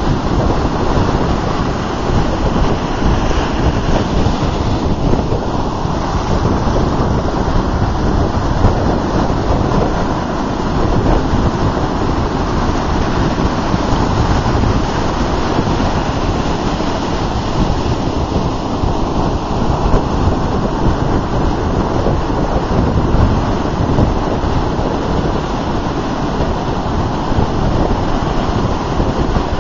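Ocean surf breaking and washing up the beach, a steady loud rush without pause, with wind rumbling on the microphone.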